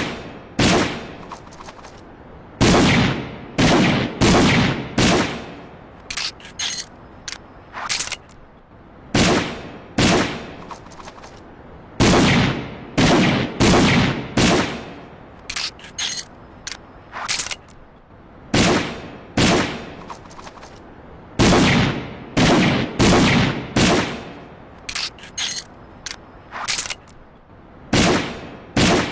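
Colt Detective Pro revolver sound effect: groups of several gunshots, each with a short echoing tail, followed by clusters of quick, lighter clicks. The cycle repeats about three times.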